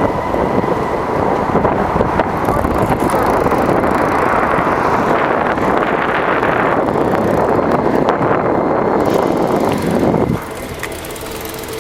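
Steady road and wind noise from a moving vehicle. About ten seconds in it drops suddenly to a quieter, steady hum.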